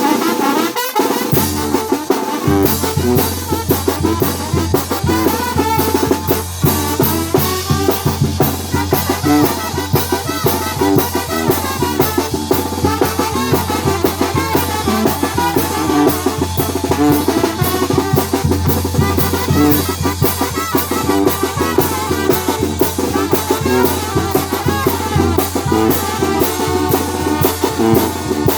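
A band playing a song with a drum kit keeping a steady beat; the low bass comes in about two and a half seconds in and carries on under the music.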